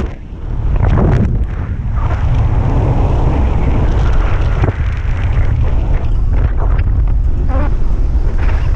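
Heavy wind noise from the airflow of flight buffeting the camera microphone under a speedflying wing, a steady low rumble that dips briefly just after the start.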